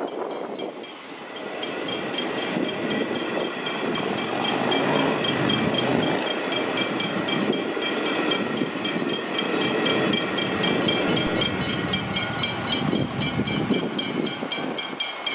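Level crossing warning bells ringing rapidly and steadily while an electric suburban train passes over the crossing, its wheels and running gear making a broad rumble that swells a couple of seconds in and eases near the end.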